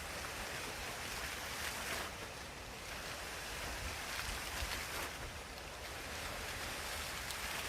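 Water sound effect playing back: a steady rushing hiss of water that swells and ebbs every two to three seconds.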